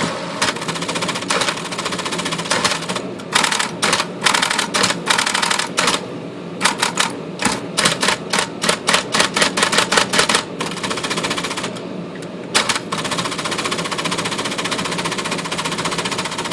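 Smith Corona all-power electric typewriter running with a steady motor hum, and a run of sharp typing strikes and carriage clatter from about three to ten seconds in, coming two to three a second near the end of the run, with one more strike a couple of seconds later. The power carriage return is being worked in after repair of a stripped gear.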